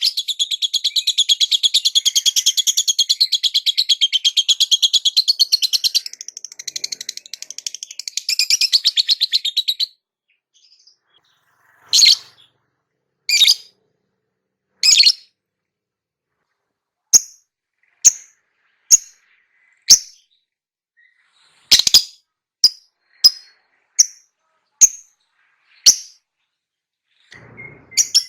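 Lovebird chattering in a rapid, high-pitched trill for about ten seconds, then after a short pause giving single sharp chirps roughly once a second, with the fast trill starting up again at the very end.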